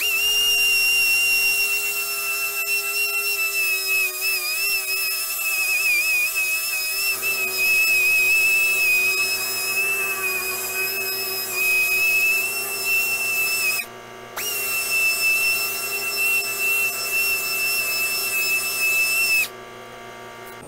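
Small power tool spinning a 1500-grit sanding pad over a plastic headlight lens: a steady high whine that wavers slightly under load, stops briefly about 14 seconds in, then runs again and cuts off near the end.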